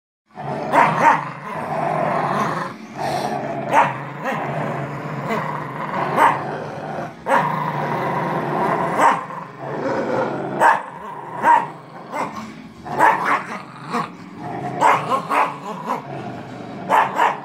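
Two dogs play-growling steadily while tugging a rope toy between them, broken every second or two by short, sharp barks or snarls.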